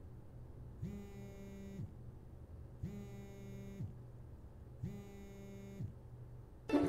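A mobile phone vibrating: three buzzes of about a second each, two seconds apart, each rising in pitch as it starts and falling as it stops. A loud burst of music cuts in suddenly at the very end.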